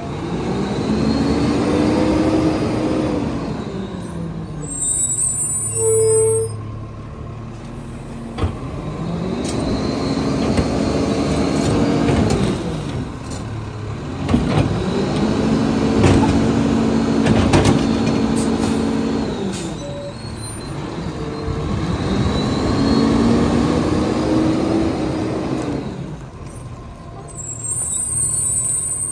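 Lodal EVO garbage truck's engine revving up and back down, four times over, as it drives the hydraulics that lift the trash cart into the hopper. Short air hisses come between the revs.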